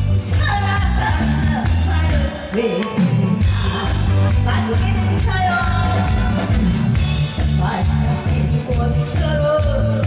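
A song sung live over a loud backing track with a steady beat.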